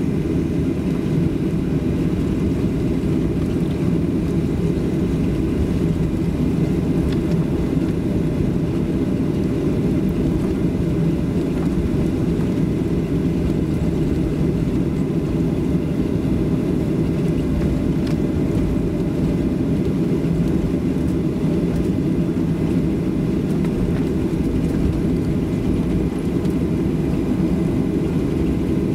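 Steady low rumble inside the cabin of a Boeing 737-700 taxiing after landing, its CFM56 engines at idle, heard from a seat behind the wing.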